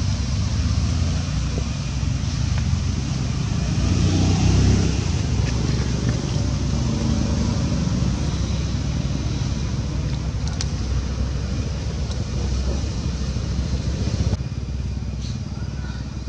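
Low rumble of road traffic, swelling about four seconds in as a vehicle passes.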